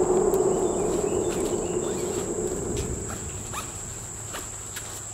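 Insects keep up a steady, high-pitched trill over a broad rushing noise that is loudest at the start and fades over the first three seconds, with scattered light clicks and footsteps.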